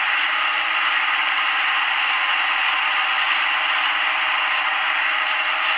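CNC lathe simulator's machining sound effect playing while the simulated tool cuts a groove: a steady hiss with a faint low hum underneath.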